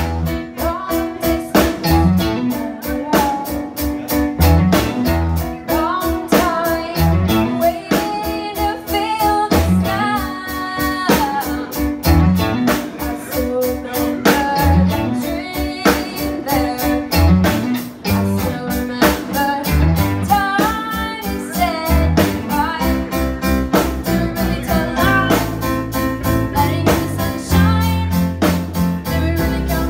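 Live rock band playing: electric guitars, bass and drums keeping a steady beat, with a woman singing lead over them.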